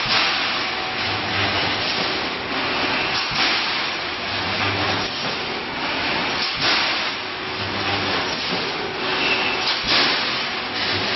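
Wire mesh welding machine running: dense, steady mechanical noise with a louder clatter every second or few, and a low hum that comes in for about half a second roughly every three seconds.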